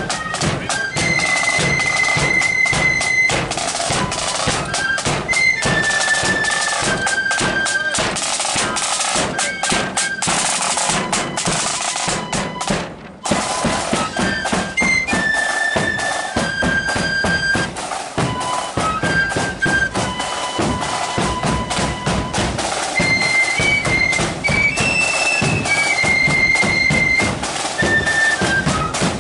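A marching flute band playing a tune: flutes carrying a shrill melody over side drums beating time. The music drops out for a moment about halfway through, then carries on.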